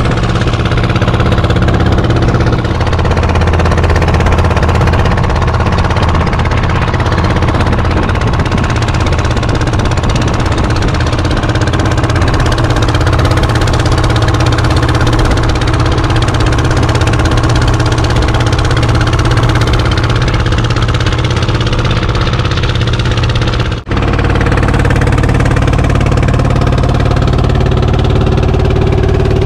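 Fishing boat's engine running steadily while the boat is underway, a loud low hum with a wash of noise over it. The sound drops out for a moment near the end.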